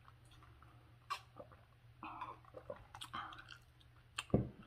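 Soft mouth noises of sipping and swallowing ice water: scattered small clicks and wet gulps, with a dull knock near the end.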